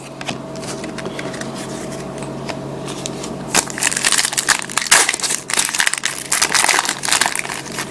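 Foil trading-card pack wrapper crinkling as it is torn open, in dense irregular crackles starting about three and a half seconds in.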